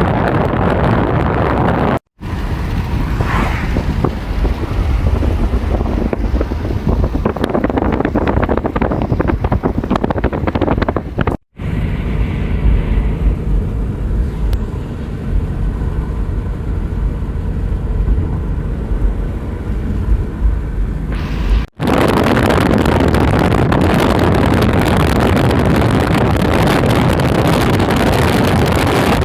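Strong wind buffeting the microphone: a loud, rough low rumble, broken three times by sudden cuts between clips.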